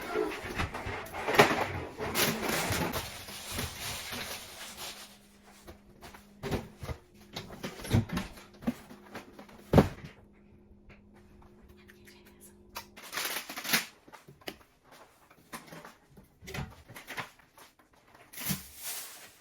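Household clatter of groceries and containers being handled and set into a refrigerator: rustling over the first few seconds, then scattered knocks and clicks, with a low steady hum through the middle.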